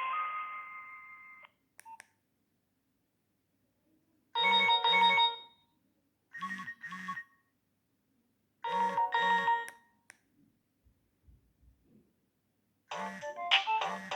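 Nokia 2610 ringtones playing through the phone's small speaker. One tune fades out in the first second or so; a short two-note chime then sounds three times, about two seconds apart, the middle one quieter, and a new, busier tune starts near the end.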